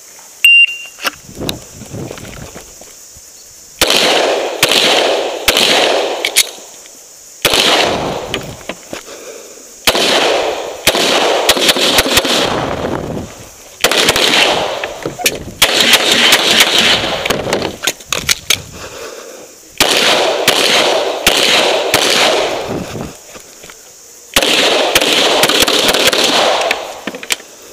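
An electronic shot timer beeps once about half a second in, then a semi-automatic pistol fires several rapid strings of shots, each lasting one to three seconds, with short pauses between them and ringing after each shot.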